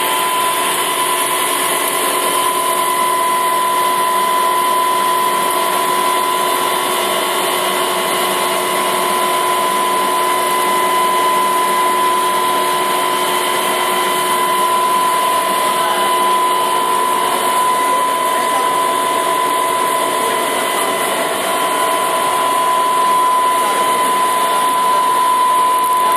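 Plastic zipper-making machine running steadily: an even mechanical hum with a constant high whine and air hiss.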